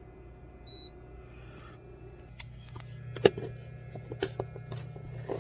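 Cookware being handled in a small kitchen: a string of sharp clicks and knocks, one much louder than the rest about three seconds in, after a short electronic beep about a second in, over a steady low hum.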